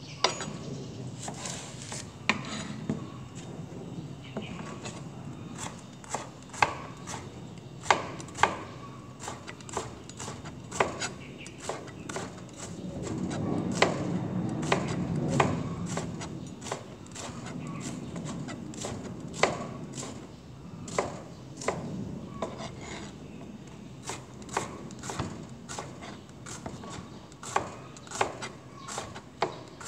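Kitchen knife chopping bitter gourd on a plastic cutting board: irregular sharp knocks, mostly one or two a second. A low background rumble swells for a few seconds near the middle.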